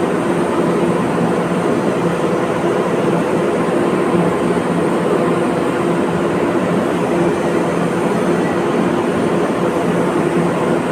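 Arc welding in progress: a steady, dense crackling hiss with a continuous electrical hum underneath.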